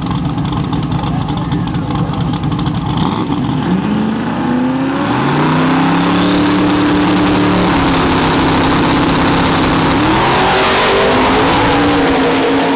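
Drag-racing truck engines running at low revs, then launching: the engine pitch climbs steeply and holds at high revs, dips briefly about eight seconds in and again near ten seconds as they shift gears, then climbs again as they come past loudest near the end.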